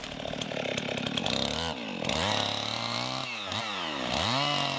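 Chainsaw running while bucking a felled incense cedar log, its engine pitch dipping and recovering about three times.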